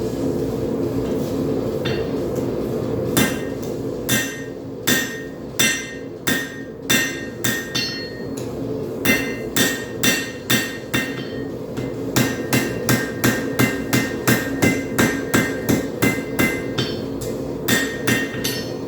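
Hand hammer striking a hot railroad spike on an anvil, each blow ringing out from the steel. The blows begin about three seconds in, spaced irregularly at first, then come in a fast steady run of about two a second before stopping near the end, over a steady low drone.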